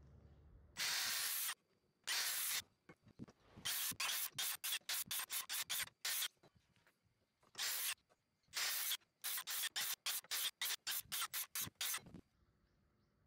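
Makita 18V cordless circular saw making a series of quick, shallow passes through a softwood rail, cutting a row of closely spaced kerfs to waste out a lap joint. There is a longer cut about a second in, then a fast run of short cuts, several a second, each starting and stopping sharply.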